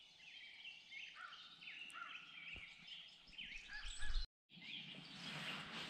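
Songbirds chirping, many short, quick calls overlapping, with a brief low rumble about four seconds in. After a sudden cut, a steady rushing hiss.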